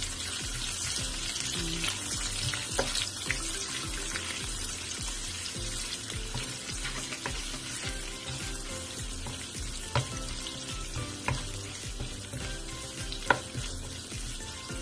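Sliced onion and garlic sizzling in a little oil in a nonstick wok, stirred with a wooden spatula. The spatula knocks sharply against the pan a few times, loudest about ten and thirteen seconds in.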